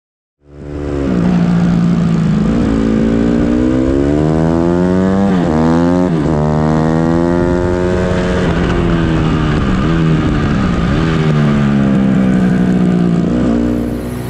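Four-stroke pit bike engine heard on board at full throttle around a track. It cuts in about half a second in, and its pitch climbs and falls with throttle and gear changes, with sharp dips about five to six seconds in and again around ten to eleven seconds as the rider shuts off for corners.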